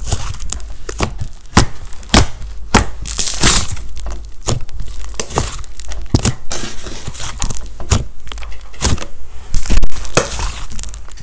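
Thick blue slime being squeezed and kneaded by hand, making irregular sharp squelching clicks and pops, with one loudest pop a little before the end.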